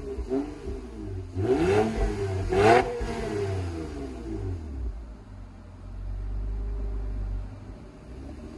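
Honda Accord V6 revving through a Borla axle-back exhaust while standing still: a small blip, then two sharp revs about a second apart, then it settles back to a low idle.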